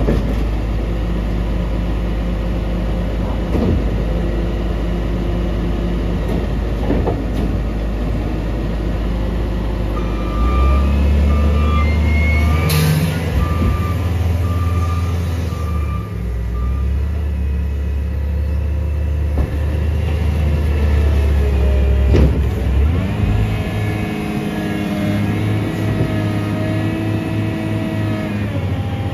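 Diesel engines of a Case wheel loader and a rear-loader garbage truck running. The loader's engine pulls harder from about ten seconds in as it works a pile of leaves. A reversing alarm beeps at a steady pace for several seconds, and there is a sharp clank just before the beeping ends.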